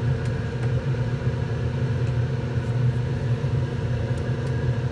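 Steady low hum of a small electric motor running, with a few faint light clicks.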